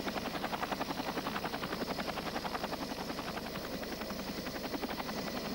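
Boeing Vertol CH-46 Sea Knight tandem-rotor helicopter running close by, its rotor blades giving a steady, fast, even chopping.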